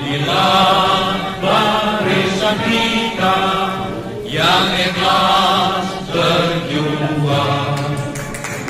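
Recorded Malay patriotic song playing over a sound system, in a passage between its sung lines: held chords of several sustained tones.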